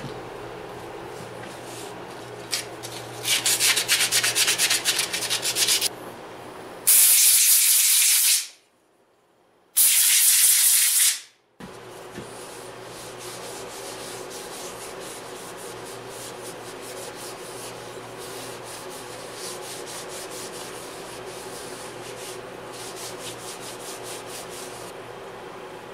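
Small oak herb stripper being hand-sanded on a sheet of sandpaper, a few seconds of quick rubbing strokes. Then two loud hissing sprays from an aerosol can, followed by steady room noise with faint rag wiping.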